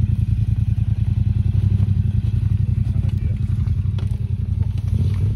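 Large adventure motorcycle's engine running steadily at low revs as the bike pulls slowly up a steep, loose, rocky climb, with a few faint clicks and knocks of stones.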